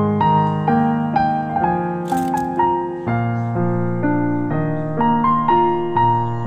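Background piano music: a melody of single notes moving over held low bass notes.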